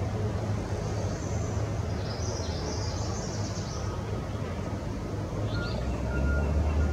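Steady low rumble of a vehicle engine, with faint high bird chirps in the first half. Near the end a vehicle's reversing alarm starts beeping evenly, about two beeps a second, as the rumble grows louder.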